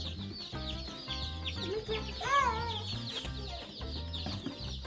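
A crowd of day-old chicks peeping nonstop, many high, falling cheeps overlapping. About halfway through, a louder wavering cry rises above them.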